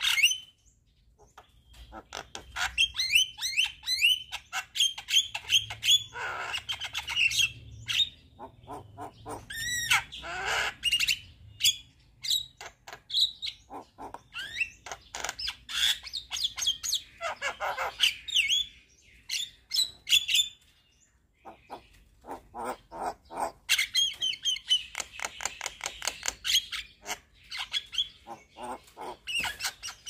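Javan myna singing: a varied stream of rapid clicking, chattering, squawky and short whistled notes, with brief pauses about a second in and around twenty seconds in.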